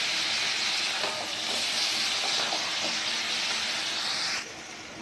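Chicken pieces and spice masala sizzling in hot oil in a metal kadhai, a steady hiss that drops away suddenly about four seconds in.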